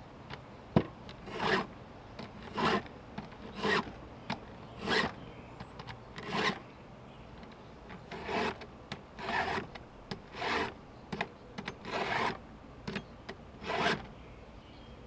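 Chainsaw chain being sharpened by hand: a file rasps across the cutters in about a dozen strokes, roughly one a second. Two sharp clicks come near the start.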